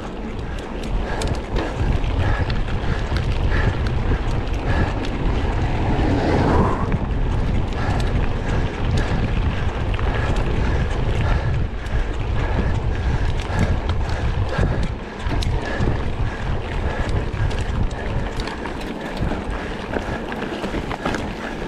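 Wind buffeting the microphone of a camera on a bicycle being ridden at speed. Small clicks and rattles run throughout.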